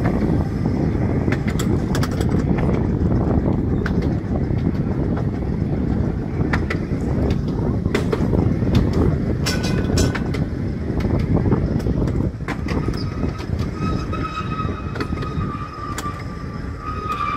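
Seaton Tramway electric tram running along its track: a steady low rumble with sharp clicks from the rails. In the last few seconds a high, steady squeal comes in as the tram rounds a curve.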